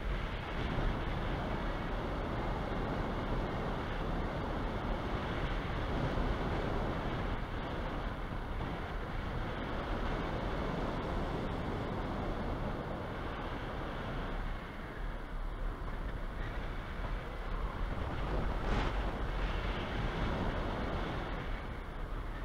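Airflow rushing over a hang glider's wing-mounted camera microphone in flight: a steady wind roar, easing briefly about two-thirds of the way through and swelling again near the end.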